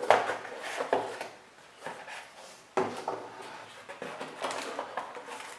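Cardboard box being opened and handled: the lid lifted off and set down, with several dull knocks and scrapes, then softer rustling as the paper manual is taken out.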